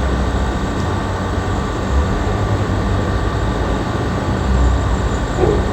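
GMC Denali engine idling steadily, a low even hum. It runs with no misfire now that a loose ignition coil wire has been reconnected.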